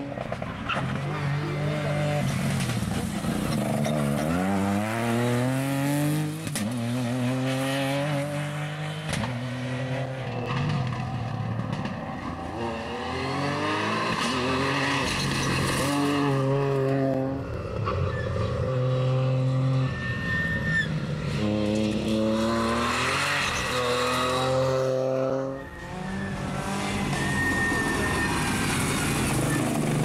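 Ford Fiesta rally car engine revving hard at full throttle, its pitch climbing repeatedly through the gears and dropping sharply on gear changes and lifts for corners, with a few brief dips as the car passes.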